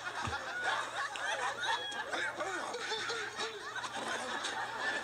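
Sitcom studio audience laughing, many voices chuckling and laughing over one another, played back through a tablet's speaker.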